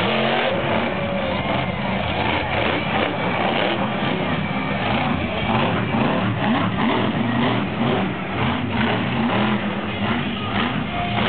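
Monster truck engine running loud, its revs rising and falling again and again as the truck is driven hard.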